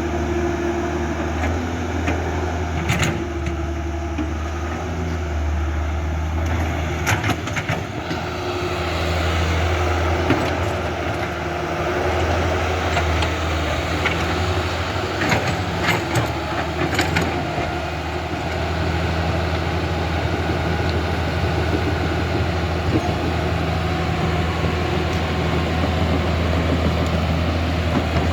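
Radio-controlled model excavator and bulldozer running, a steady low motor hum with a few brief clicks or scrapes.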